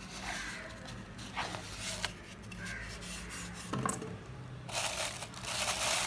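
Polystyrene foam packing insert rubbing and scraping against the cardboard box as it is lifted out, with scattered light knocks; a little before the end, a plastic bag starts crinkling loudly as it is handled.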